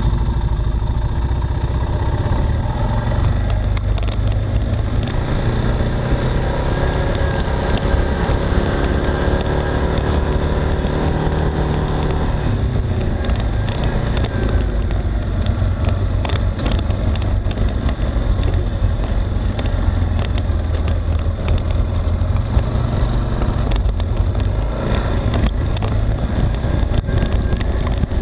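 ATV engine running at low trail speed on a rough dirt descent, heard close from the machine's front rack, with scattered knocks and rattles as it goes over rocks and ruts.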